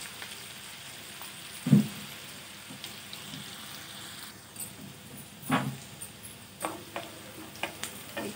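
Chopped onions, garlic and green chillies sizzling in hot oil in a kadhai as they are fried toward golden brown. A wooden spatula stirs and knocks against the pan several times, the loudest knock about two seconds in, and the sizzle thins out about halfway.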